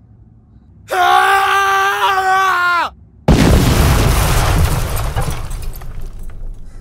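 Comic crash effect for a car going off a cliff: a long high wail of about two seconds whose pitch drops at the end, then, after a short gap, a sudden loud crash that dies away over about three seconds.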